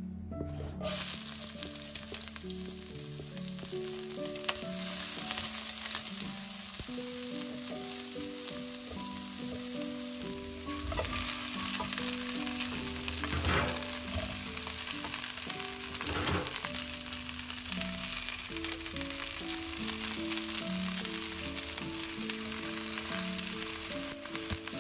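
Hot oil sizzling in a frying pan, starting suddenly about a second in, as chicken drumsticks and onion fry and are stirred with a silicone spatula. Soft plucked background music plays underneath.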